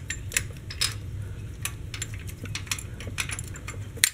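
A distributor hold-down clamp being worked off its stud: irregular light metallic clinks and rattles.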